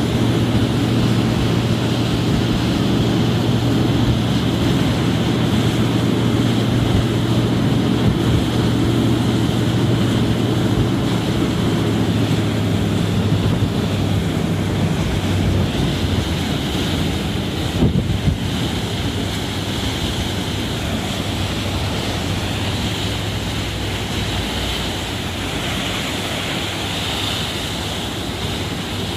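Waterjet drives of a SeaStreak high-speed ferry churning the wake at the stern: a steady rush of foaming water over a low engine hum, with wind buffeting the microphone. The low hum fades about halfway through, leaving mostly the hiss of the wake.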